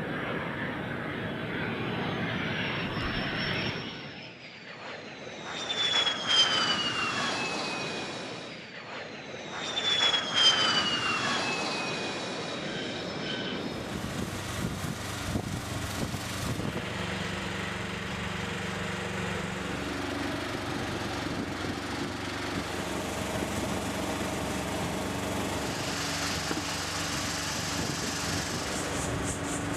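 F-16 fighter jet passing low over a runway, its engine whine falling in pitch twice, about 6 and 10 seconds in. About halfway through it gives way to a steady low engine hum.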